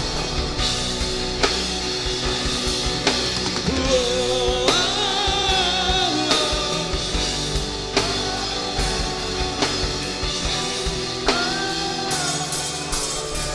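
Live rock-style worship band playing a passage between sung lines: a drum kit and guitars, with long, wavering melodic notes held twice.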